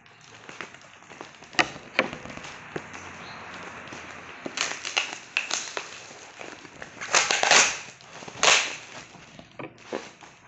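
Plastic parcel wrapping and packing tape being cut open with scissors and torn by hand: two sharp snips in the first two seconds, then crinkling and rustling of the plastic with several loud ripping bursts from the tape and label being pulled away.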